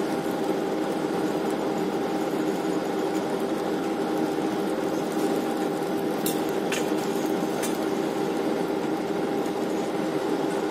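Steady drone of the research ship's deck machinery, holding several even tones without change. A few short, sharp clicks come about six to eight seconds in.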